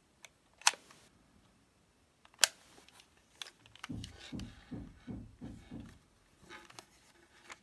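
A Konica Big Mini VX compact film camera handled in the hands: two sharp plastic clicks, then a run of about six soft knocks and rubbing sounds as it is turned over, with a few fainter clicks near the end.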